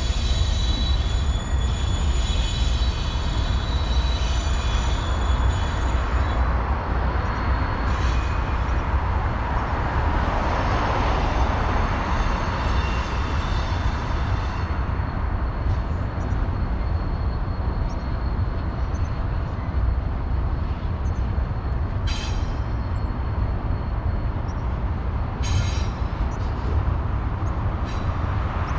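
Container freight train rolling past: a steady rumble of wheels on rail, with a high wheel squeal over the first several seconds and two brief knocks in the last third.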